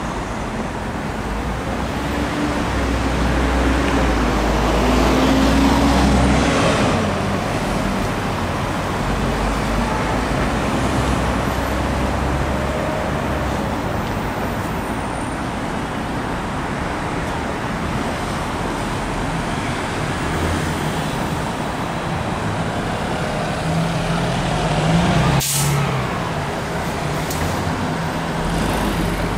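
Steady road traffic of cars, taxis and buses passing on a wide city avenue. A heavier vehicle's engine swells past a few seconds in, and another rises near the end with a short sharp click.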